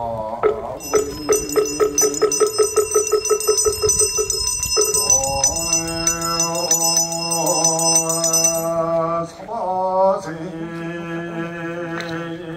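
A small Buddhist handbell rung in a fast, even shake of about five strokes a second. About five seconds in, a voice starts chanting in long, held phrases while the bell keeps ringing, then the bell stops near the nine-second mark and the chanting goes on.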